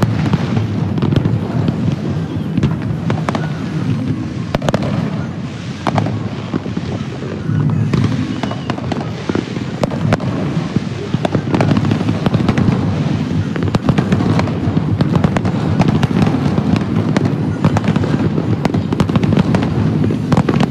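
Fireworks going off in a continuous barrage of bangs and crackling, many sharp reports overlapping over a low rumble.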